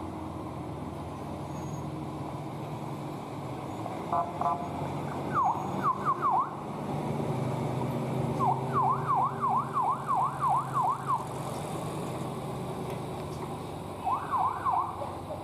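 Escort siren giving several bursts of quick rising-and-falling yelps, the longest run about eight yelps over nearly three seconds, over the steady low running of a heavy truck's diesel engine as it hauls a loaded low-bed trailer around a tight bend.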